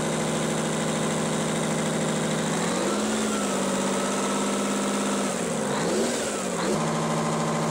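Detroit Diesel 16V92 two-stroke turbocharged V16 diesel running at idle, its speed raised to a higher steady speed about three seconds in by hand at the throttle linkage. The speed dips and picks up again around six seconds in, then drops back to idle near the end.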